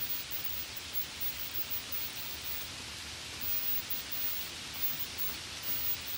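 Steady light rain: an even hiss with faint scattered patter of drops.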